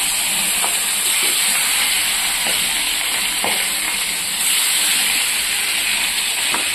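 Turmeric-and-salt-rubbed fish pieces sizzling in hot oil in a steel kadai, a steady loud frying hiss with a few faint taps.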